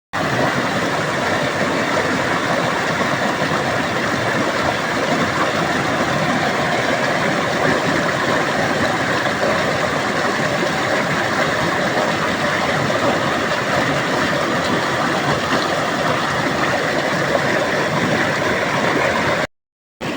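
Waterfall water rushing in a steady, unbroken roar, cutting off suddenly near the end.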